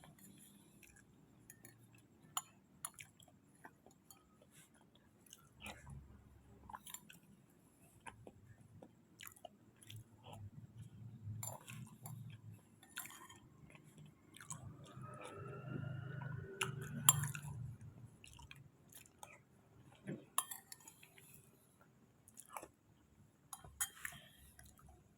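Close-miked chewing and wet mouth smacks of someone eating kolak ubi, soft sweet potato in coconut-milk syrup, with scattered small clicks. A short rising tone comes about halfway through.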